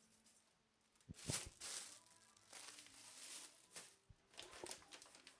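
Faint crinkling and rustling of plastic seed packets being handled, with a few light knocks.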